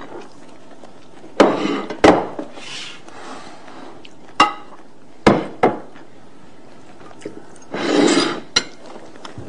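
Plates and forks clinking and knocking: half a dozen separate sharp knocks, with a longer clatter about eight seconds in.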